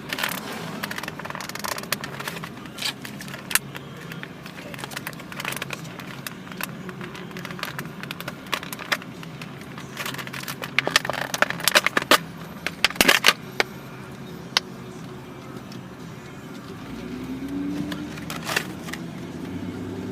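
Plastic toy packaging being handled and pulled apart, with scattered sharp clicks, crackles and scrapes that bunch together about halfway through, over the steady hum of a car.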